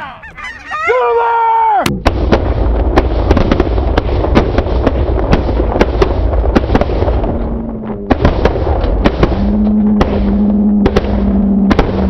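A large flock of geese calling overhead: a few single honks, then from about two seconds in a loud, dense clamor of many birds honking at once. A low, steady hum runs under it in the last few seconds.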